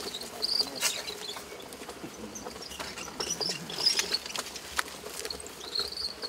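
Wooden ox cart rolling over a dirt track: scattered knocks and clatters of the cart, with short high-pitched chirps throughout.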